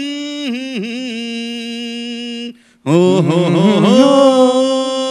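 Men singing a Bengali song unaccompanied into microphones, drawing out long wordless 'o ho ho' notes with slight dips in pitch. The voice breaks off about two and a half seconds in, then comes back fuller, with a second man's voice joining on a long held note.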